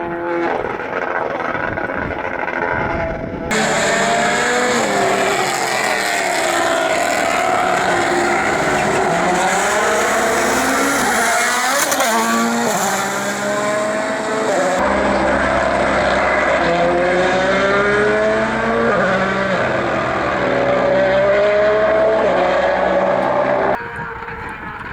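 Rally cars driven flat out, engines revving up through the gears again and again. The sound changes abruptly a few times as one car's run gives way to another's.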